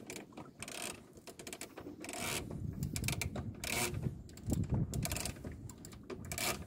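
Sailboat rigging and sail working in the wind: scattered mechanical clicks and several short rustles of sail cloth over a low wind rumble.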